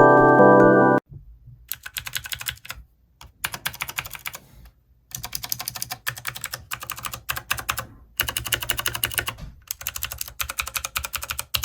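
Typing on an Ajazz K870T mechanical keyboard with Huano clone blue (clicky) switches, in bursts of rapid keystrokes with short pauses. Background music plays for about the first second and then cuts off before the typing starts.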